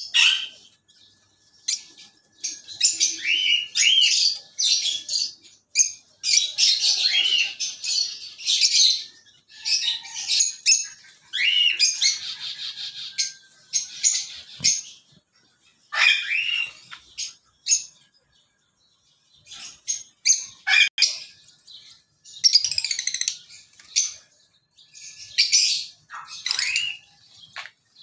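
Lovebirds chirping and screeching, shrill high calls in busy clusters with short gaps between them and a lull of a couple of seconds past the middle.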